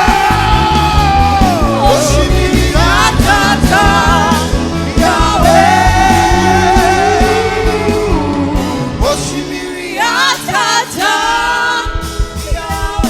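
Gospel worship music performed live: a lead voice sings drawn-out, ornamented lines with vibrato over a band accompaniment. About nine seconds in the bass drops away and the backing thins, leaving the voice over lighter accompaniment.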